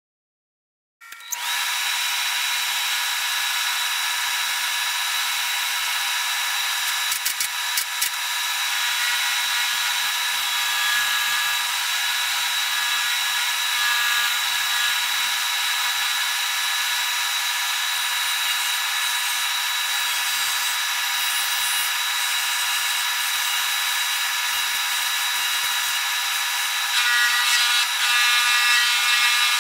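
Shoe finishing machine running with a steady whine while the edge of a shoe's sole and heel is ground against its sanding wheel. It starts about a second in and grows louder and rougher near the end as the shoe is pressed harder.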